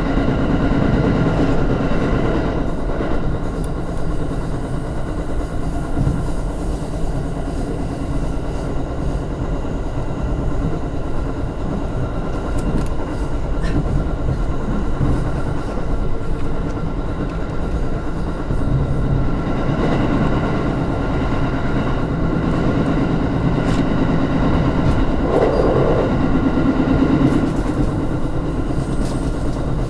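Electric commuter train running at speed, heard from inside its rear cab: a steady rumble of wheels on rail with a constant hum, and occasional clicks over the rail joints. It gets a little louder about 25 seconds in.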